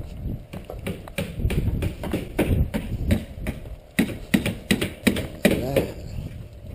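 Footsteps of a person and a dog walking on a concrete sidewalk: a quick, irregular run of clicks and taps over a low rumble.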